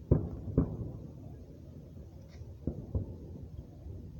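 Fireworks exploding: four dull bangs, two about half a second apart at the start and two in quick succession near the end.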